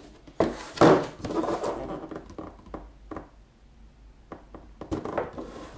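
Cardboard toaster box handled and turned over in the hands: a sharp knock about a second in, then scattered scuffing and rubbing of the cardboard with a few light knocks.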